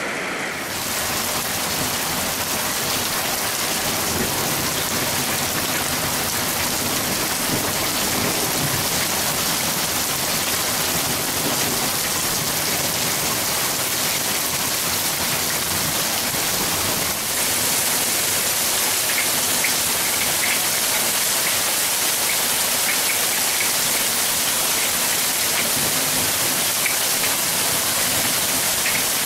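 Heavy downpour: rain falling hard and splashing on waterlogged ground and puddles, a dense, steady hiss that grows a little louder and brighter about halfway through.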